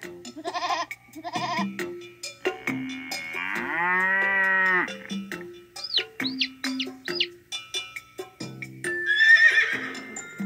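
A string of recorded farm-animal calls over a light plinking tune: two short wavering calls, a long drawn-out call a few seconds in, a quick run of high chirps, and a rougher call near the end.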